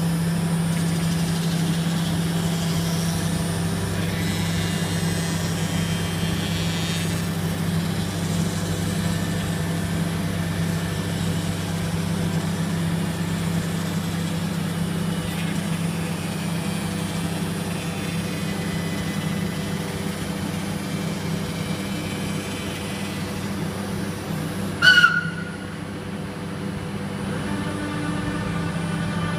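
CNC router spindle running steadily as it mills the foam core of a fibreglass composite panel down to the glass skin in a clean-up pass, a constant machine hum. Near the end there is a brief loud burst, and the cutting noise drops as the head lifts clear of the panel.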